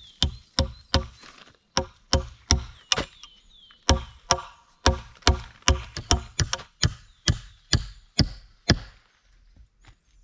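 Repeated hatchet blows on wood, about twenty sharp knocks at roughly three a second with two short pauses, stopping near the end.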